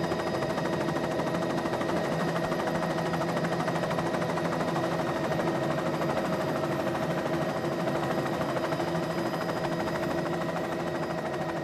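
Helicopter running steadily: a rapid rotor chop under a steady engine whine.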